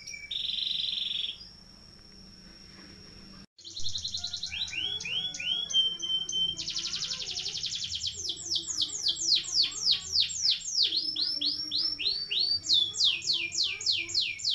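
Domestic canary singing a long rolling song of rapid trills and runs of fast downward-sliding notes, several a second. The song falls quiet for a couple of seconds and breaks off briefly before picking up again.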